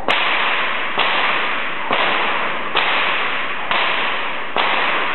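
Murphy bullwhip cracking six times at an even pace, about one crack a second, as in a repeated Tasmanian cutback. A steady hiss fills the gaps between the cracks.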